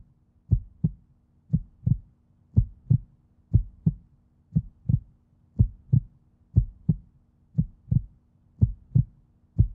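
Heartbeat sound effect: a low double thump, lub-dub, repeating evenly about once a second.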